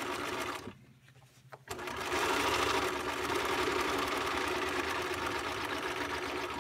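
Bernina 1010 home sewing machine stitching through layered fabric. It runs briefly, stops for about a second near the start, then starts again and runs steadily, stopping at the end.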